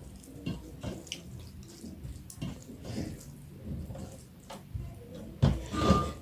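Close-miked mukbang eating sounds: wet chewing and mouth smacks on pork curry in broth, irregular, with a louder burst near the end.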